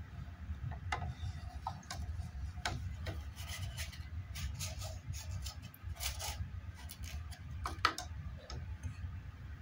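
Irregular clicks and light rubbing of plastic as an aquarium fish net is handled in a plastic jar of water, over a steady low hum.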